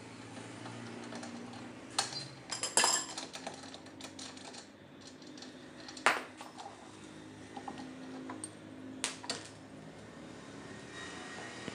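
Sharp metal clinks and knocks as a Maruti Alto's rear brake drum is worked loose and pulled off the hub, a handful of separate knocks with a cluster near the start, over a steady low hum.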